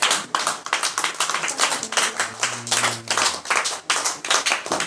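Children clapping their hands in a quick, fairly even beat of several sharp claps a second, with a low voice holding a note briefly in the middle.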